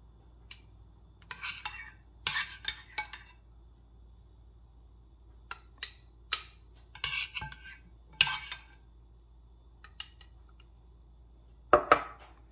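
Metal spoon scraping and clinking against a glass jar and a bowl while thick mayonnaise is spooned into the jar, in short scattered bursts.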